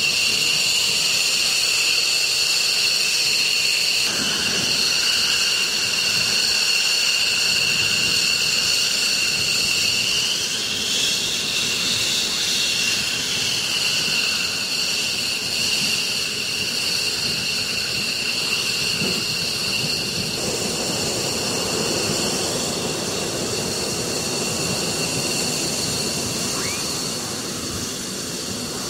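F-15E Strike Eagle's turbofan jet engines running at taxi power: a steady high-pitched whine over a low rumble. The whine shifts a little about ten seconds in, and the rumble grows in the last third.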